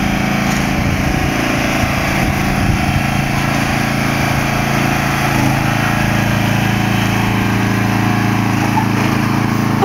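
A ride-on lawn mower's engine running steadily at an even pitch.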